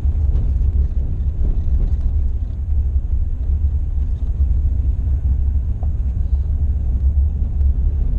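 Van driving along a dirt road, heard from inside the cab: a steady low rumble of engine and road noise.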